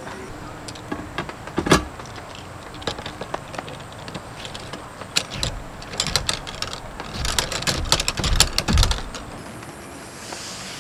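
Metal camp gear being handled: a series of clicks, knocks and rattles as a hexagonal cut-out metal plate is fitted onto a pole stand. There is a sharp knock about a second and a half in, and a dense run of clatter and thumps in the second half.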